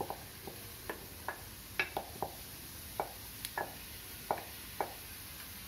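About a dozen light, irregular taps and knocks as a plate is tipped against the rim of a frying pan and ground paste is scraped off it with the fingers into the pan.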